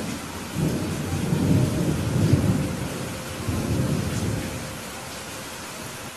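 Thunder rumbling over a steady downpour of rain. The rumble builds about half a second in, is loudest around two seconds, swells once more, and dies away shortly before the end while the rain hiss carries on.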